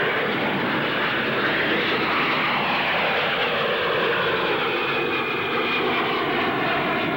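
Jet aircraft in flight: a steady, loud jet engine noise with a faint whine that slides in pitch as the aircraft moves.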